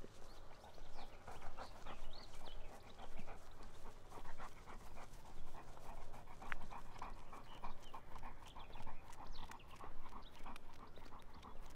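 Golden retriever panting in quick, even breaths.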